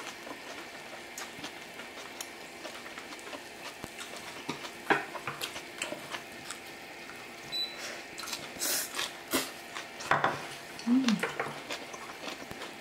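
Pork belly, shrimp and kimchi sizzling steadily on an electric grill plate, with chopsticks clicking against the grill and dishes and some chewing. The clicks come more often in the second half.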